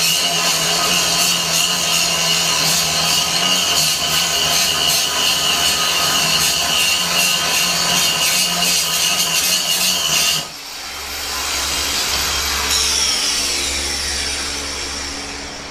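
Electric angle grinder grinding heavy rust off a quarter-inch steel plate: a loud, steady grinding that cuts off abruptly about ten seconds in. A quieter whine follows and falls in pitch.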